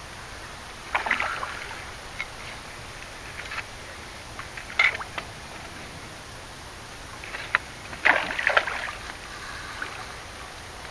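A big hooked carp splashing at the water's surface as it fights on the line. There are three bursts of splashing: about a second in, near the middle, and a longer one about eight seconds in.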